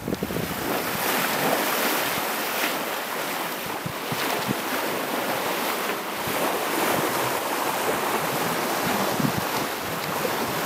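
Steady rush and hiss of water streaming past the hull of a Beneteau First 31.7 sailing yacht under way, with wind on the microphone.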